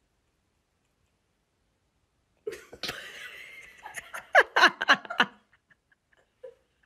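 A person laughing, starting about two and a half seconds in with a breathy giggle and breaking into a quick run of short, loud bursts of laughter.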